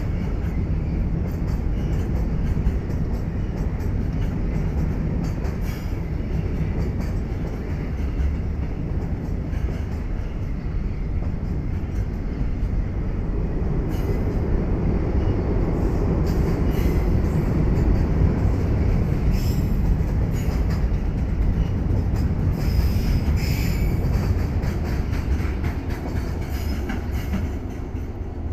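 Container freight wagons rolling past: a steady low rumble of steel wheels on rail with repeated clicks at the rail joints, and brief high wheel squeals about two-thirds through. The rumble fades as the last wagon goes by near the end.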